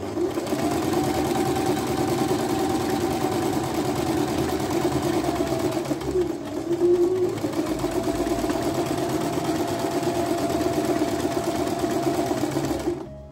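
Electric sewing machine running steadily as it stitches the hem of flannel pyjama shorts. Its whine drops briefly about halfway through as the machine slows, then picks back up to speed.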